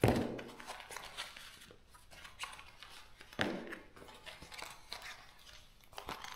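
Small leather-care kit items, a sponge and a plastic lotion tube, being taken out and set down on a sheet: scattered light clicks and taps, with a sharper knock at the very start and another about three and a half seconds in.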